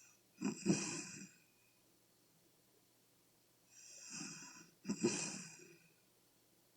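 A woman around forty with sleep apnea snoring loudly: two heavy snores, about a second in and about five seconds in, the second led in by a softer, hissing breath, with quiet pauses between.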